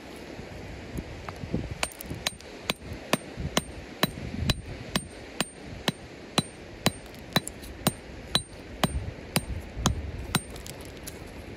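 A geological pick hammer tapping a dark rock nodule held in the hand. About twenty sharp, ringing taps come in a steady rhythm of roughly two a second, starting about two seconds in and stopping shortly before the end.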